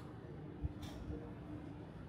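Urban background rumble with a faint steady hum, broken by a single soft thump a little over half a second in and a brief hiss just after.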